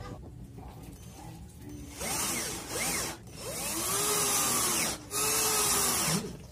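36V cordless drill run in three short bursts, drilling into the coconut shell, its motor speeding up and slowing down with each squeeze of the trigger. The first burst comes about two seconds in; the last two are longer and nearly back to back.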